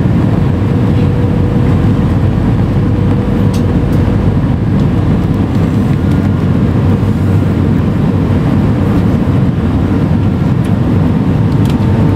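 Steady cabin noise inside an Airbus A319 descending on approach: the rush of airflow and the engines running, heard from a window seat over the wing, with a faint steady hum.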